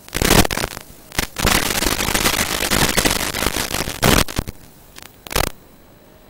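Loud hiss and crackling static from an analog FPV video receiver's audio, in irregular bursts, the longest lasting about three seconds. It is the sign of the analog video link breaking up as the signal weakens.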